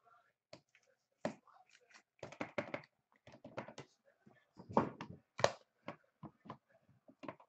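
Hands handling trading cards and card holders on a table: a string of light, irregular taps and clicks.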